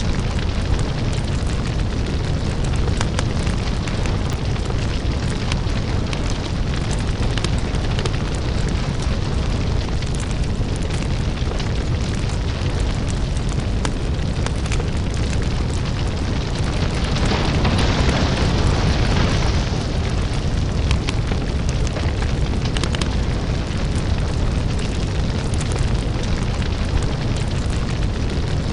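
Crackling lava ambience: a deep, steady rumble with frequent small crackles and pops. About two-thirds of the way through, a hissing rush swells for a couple of seconds.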